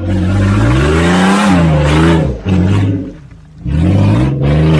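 Off-road 4x4's engine revving hard in two long spells under load, its pitch climbing and falling, the first lasting until about three seconds in and the second near the end.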